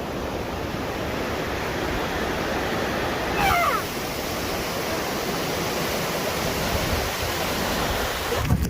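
Steady rushing of a river or fast stream. About three and a half seconds in comes a brief squeaky call that slides in pitch, and just before the end there is a low thump.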